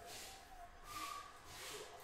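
Trading cards sliding against each other as a stack is flipped through by hand: three short, soft papery swishes.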